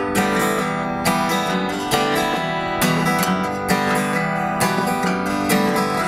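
Acoustic guitar strummed in a steady rhythm, the instrumental intro of a country song before the vocal comes in.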